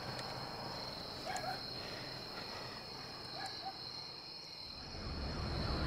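Crickets chirring steadily at night, with a few faint clicks and rustles. Near the end, the low rumble of a motorbike engine rises in.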